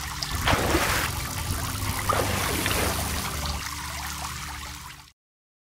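Water trickling and splashing, with a low steady drone underneath, cutting off abruptly about five seconds in.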